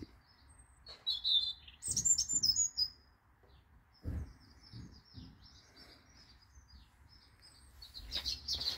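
Wild birdsong: a series of short, high chirps and twitters, loudest between one and three seconds in, with a few soft low knocks around two and four seconds in.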